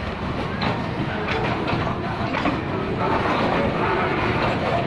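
Freight train wagons rolling past close by: steel wheels running on the rails with a steady rumble and scattered clicks and knocks as the wheels cross the rail joints.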